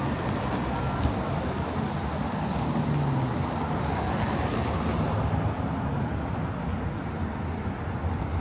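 Steady rumble of street traffic from passing motor vehicles.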